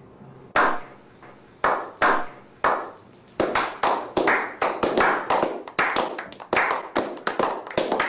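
Hand clapping: a few slow, spaced claps, then from about three and a half seconds in several people join and the clapping grows quicker and denser into applause.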